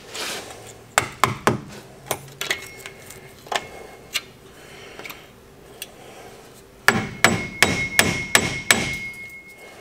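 Sharp metal clicks and taps of a steel tool on a rusted, seized truck wheel hub bearing and steering knuckle: a few scattered ones, then a quick run of about eight taps near the end, the metal ringing after them. The seam is being checked to see whether the seized hub has started to separate from the knuckle.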